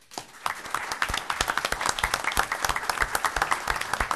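Applause from a small group of people clapping their hands, starting suddenly and going on as many quick, irregular claps.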